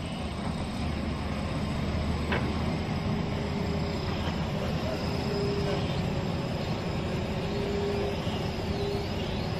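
Excavator's diesel engine running under load as it works its boom and bucket, a steady low rumble with a whine that comes and goes. One sharp click about two seconds in.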